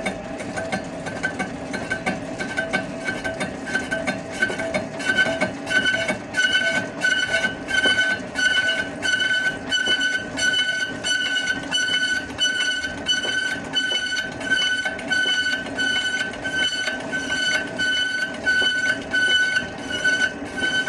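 Lathe running with a high-pitched whine and overtones over a lower steady hum; from about five seconds in the whine pulses about twice a second.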